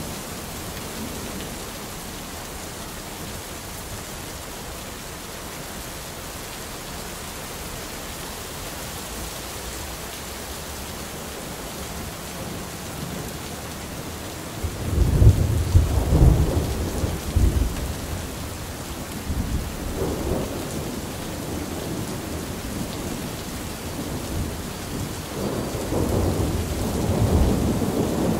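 Steady rain falling during a thunderstorm. About halfway through a loud peal of thunder rumbles for a few seconds, a weaker rumble follows, and more thunder rumbles near the end.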